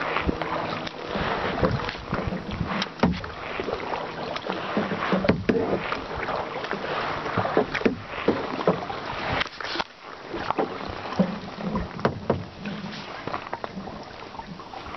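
Water splashing and dripping around a plastic kayak as paddles dip and pull, in irregular splashes throughout.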